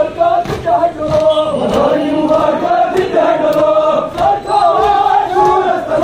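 A crowd of men chanting a noha lament together in unison. Sharp beats keep steady time underneath, a little under two a second.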